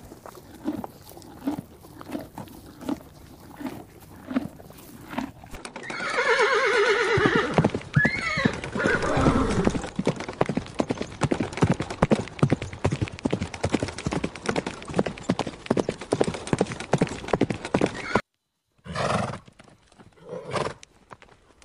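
Horses in a field: one loud whinny about six seconds in, falling in pitch, followed by a long run of quick clicks and knocks from the horses moving close by, and a few short horse calls near the end.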